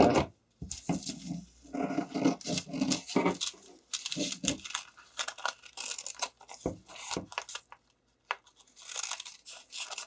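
Scissors cutting through a paper pattern and spandex fabric: a run of irregular snips with paper rustling, broken by a brief pause about three-quarters of the way through.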